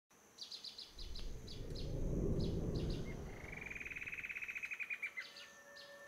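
Tropical forest ambience: a bird chirping repeatedly in short high notes, with a rapid, evenly pulsed trill lasting about two seconds midway. Underneath are a steady faint high whine and a low rumble that fades out near the end.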